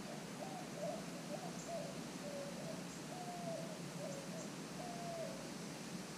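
A bird calling: a run of about eight short, low-pitched notes over five seconds, some dipping slightly at the end and one held a little longer than the rest.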